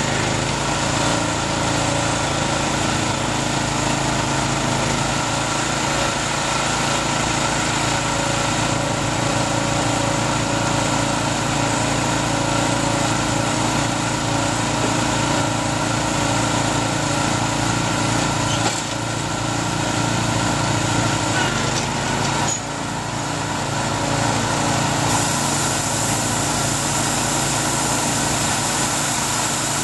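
Engine of a Takakita SW1100W crawler bale wrapper running steadily while the machine loads a round bale of rice silage and begins wrapping it in film. There is a short dip in level about three-quarters of the way through.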